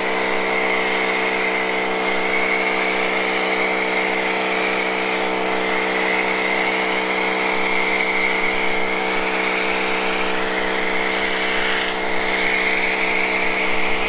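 AR Blue Clean AR390ss electric pressure washer running steadily under load with a constant hum, while its gun and foam cannon hiss as they spray soapy foam onto an A/C condenser coil.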